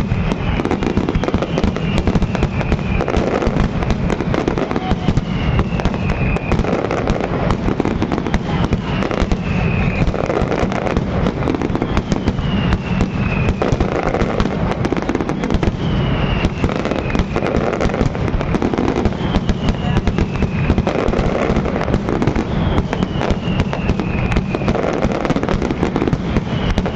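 Fireworks display: a dense, continuous barrage of shell bursts and crackling bangs. A short falling whistle recurs about every three seconds.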